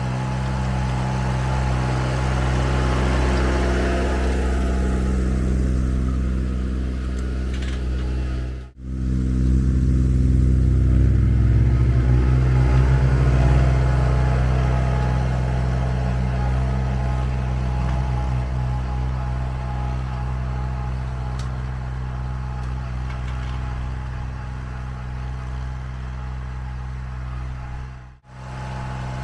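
Massey Ferguson 1020's 1.1-litre diesel engine running steadily under load as the compact tractor pulls a disc harrow. It grows louder as it comes close, about a third to halfway in, then fades as it moves away, with two brief dropouts in the sound.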